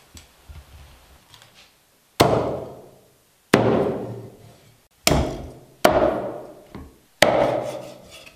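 Chinese cleaver chopping through a salted, air-dried goose on a thick round chopping block: five heavy chops, each a sharp whack that rings on briefly, the first about two seconds in. Faint small knocks of handling come before the first chop.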